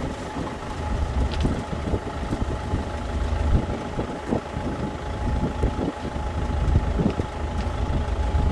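Wind buffeting the microphone: a loud, fluttering low rumble with a rushing hiss above it and a faint steady hum running through.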